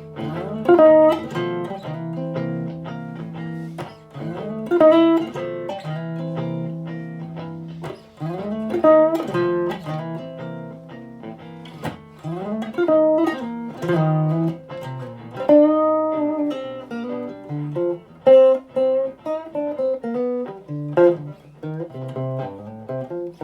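Electric guitar played through an amp into a closed-back cabinet with a 10-inch Jensen Tornado neodymium speaker: chords and single notes, many sliding up into pitch, in a phrase that comes round about every four seconds.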